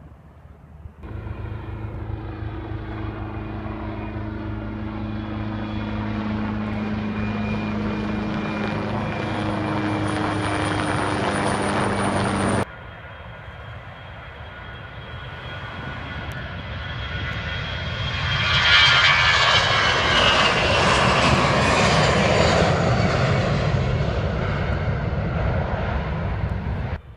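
Airliner engines passing close by, heard in two edited shots. The first is a steady engine drone with a high whine, growing louder for about eleven seconds before it cuts off abruptly. The second is a rushing engine noise that swells to its loudest about two-thirds of the way through, then eases slightly before it cuts off.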